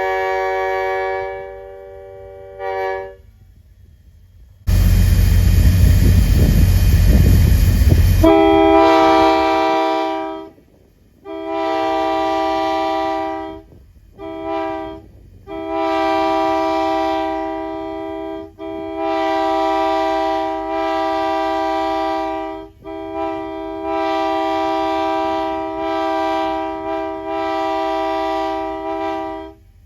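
Multi-chime locomotive air horn blown on compressed air: the tail of one blast, then a loud rush of air for about four seconds, then a chord sounded in about six blasts of differing length, one of them short and the last one long.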